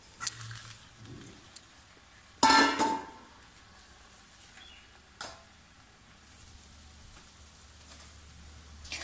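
A stainless steel lid is lifted off a steel kadai and the banana leaf covering the vegetables inside is pulled off. One loud metal clatter comes about two and a half seconds in, and a sharp tap about five seconds in.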